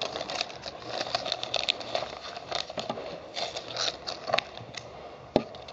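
Paper leaflets and packaging rustling and crinkling as they are handled, with irregular crackles throughout. A single sharp tap near the end.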